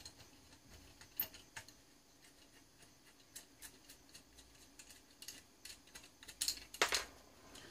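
Scattered faint clicks and taps as fingers work a wire connector off a large transformer's tap, with a louder cluster of clicks near the end.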